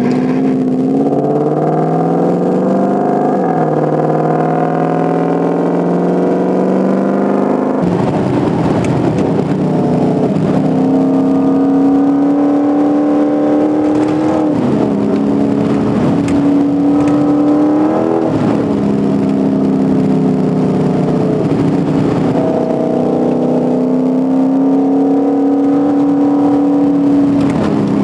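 Toyota Tundra prerunner's engine pulling through the gears under acceleration. Its pitch climbs, then drops at each upshift, a few seconds in and again later. About a third of the way in, a steady rushing noise joins the engine.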